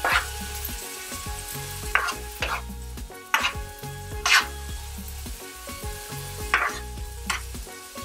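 A spoon scraping and stirring sliced vegetables around a nonstick frying pan, with irregular scrapes every second or so, over a light, steady sizzle from the pan.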